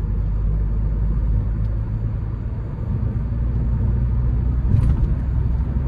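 Steady low road and engine rumble inside the cabin of a 2020 Ford Courier 1.5 driving along.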